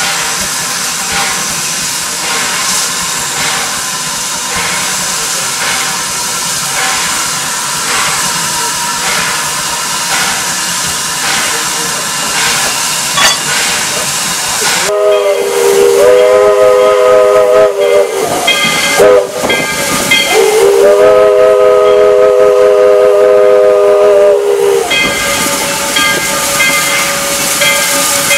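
Steam locomotive's whistle blowing, several notes sounding together: a long blast about halfway through, a short toot, then a second long blast, over a steady steam hiss.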